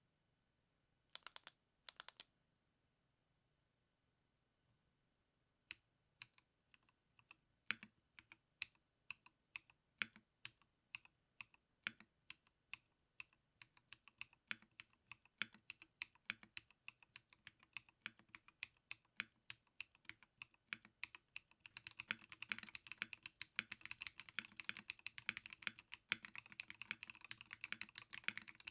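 Typing on a custom stacked-acrylic TKL mechanical keyboard with Blue Sky linear switches, an aluminium plate and POM keycaps. Two quick clusters of keystrokes near the start and a pause, then single key presses that gradually quicken into fast continuous typing for the last several seconds.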